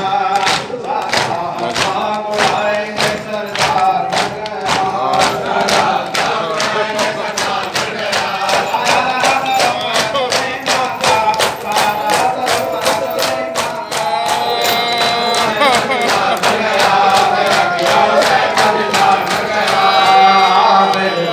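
A crowd of men chanting a mourning lament in unison while beating their chests in matam, the slaps keeping a steady beat of about two a second.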